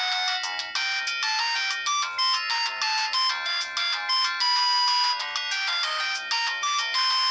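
Polyphonic ringtone melody from an O2 X2 mobile phone: a fast run of clean notes in several parts at once, all high and thin with no low notes.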